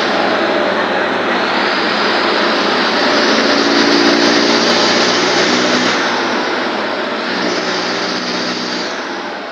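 Mercedes-Benz OF1721 city bus's diesel engine running loud, its pitch shifting a few times as it works through the gears, then slowly growing quieter near the end.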